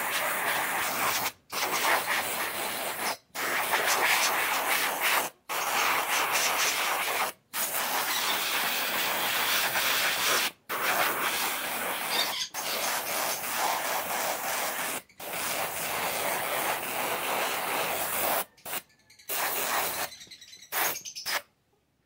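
Hand sanding: sandpaper rubbing over a wooden figure, a continuous scratchy rasp broken by several brief dropouts. It becomes choppy near the end and then stops.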